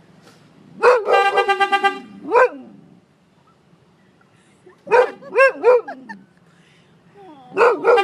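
A dog barking in a car, and the car horn sounding in quick stuttering beeps as the dog presses it. There are two spells of about a second of horn, one after the first bark and one near the end, with a run of three barks in between.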